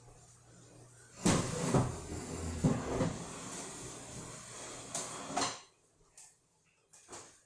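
Kitchen clatter: several knocks and clanks of kitchenware or cabinet doors being handled over a rushing hiss that lasts about four seconds, then stops suddenly.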